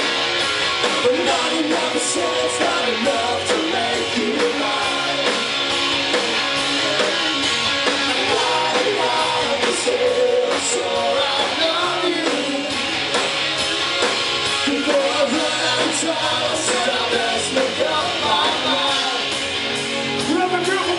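Rock band playing live, a lead singer over electric guitars and drums, loud and continuous.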